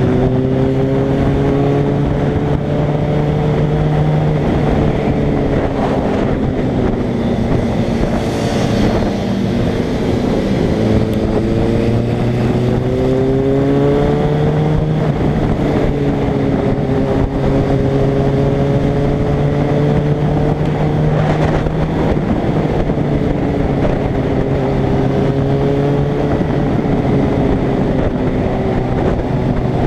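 Suzuki Bandit's inline-four engine under way, its pitch climbing and falling as the rider accelerates, shifts gears and eases off.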